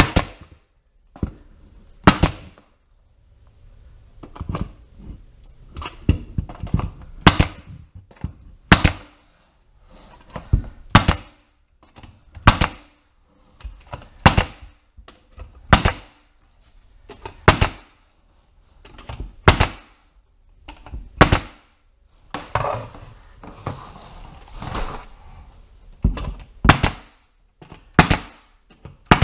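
Pneumatic nail gun firing nails one at a time to tack down the ends of flooring boards, a sharp shot every one to two seconds, with quieter handling noise between shots.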